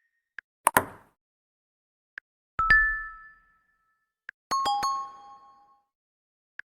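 Three different Huawei phone notification tones played one after another, about two seconds apart: a short knock-like click, then a two-note ringing chime, then a quick run of bright dings. A faint tick comes just before each.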